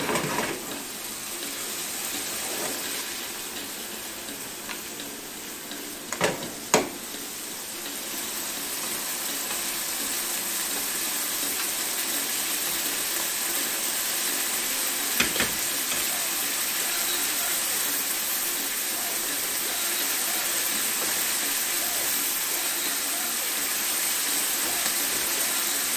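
Turkey burgers and meatballs frying in a skillet, sizzling steadily. Two sharp knocks come about six seconds in, and another lighter one around fifteen seconds.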